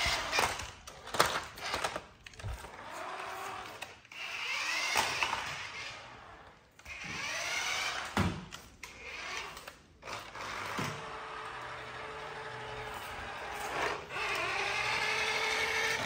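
Small electric drive motor of a toy RC cement mixer truck whining in repeated spurts that rise and fall in pitch as it starts, speeds up and stops, then runs more steadily in the last few seconds.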